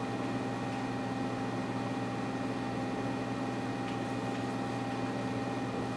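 Steady low hum with a fainter high whine over a light hiss: room tone with an electrical or fan hum.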